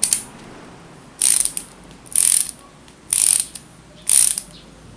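Ratchet mechanism of a Mitsushi 2-in-1 ratcheting screwdriver clicking as the handle is swung back and forth in the tightening setting: a short burst of rapid pawl clicks about once a second, six bursts in all.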